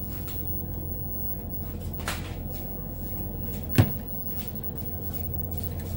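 Handling noises at a repair bench: a steady low hum with a few light clicks, and one sharp knock just under four seconds in.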